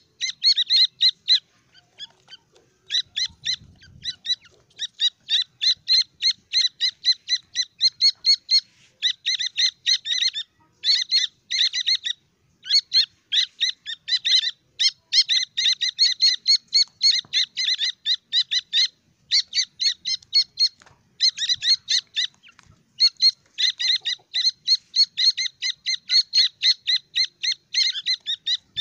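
A group of francolin chicks peeping: rapid runs of short, high-pitched peeps, many a second, broken by a few brief pauses.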